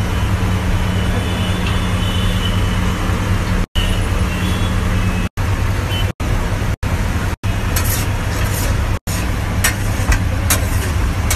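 Steady street-side noise with a low hum, cut off abruptly several times. In the later seconds, scrapes and clicks of a metal spatula on a flat iron griddle as the rice is mixed.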